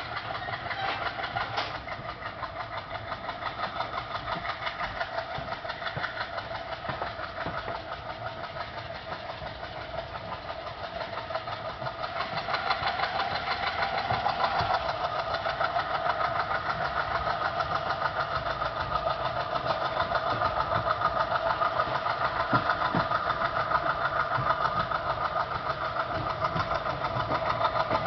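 WDM3A diesel-electric locomotive's ALCO 251 V16 engine chugging with a fast, even beat. It grows louder about halfway through as the engine throttles up to pull the train away.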